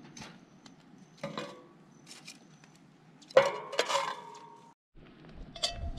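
Metal tongs clinking against a steel charcoal ring as charcoal briquettes are set into it. A few light clicks come first, then a loud metallic clank about three and a half seconds in that rings briefly.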